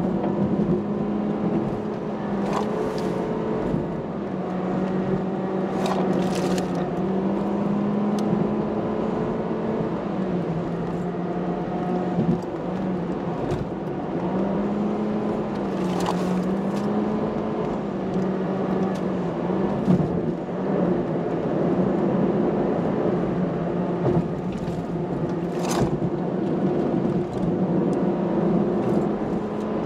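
A Toyota car's engine and tyre noise heard from inside the cabin while it is driven briskly through bends. The engine note rises and falls smoothly as the driver accelerates and eases off, and a few brief knocks sound along the way.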